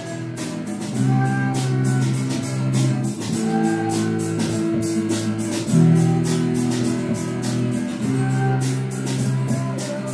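Background music with a steady beat and sustained chords that change about every two seconds.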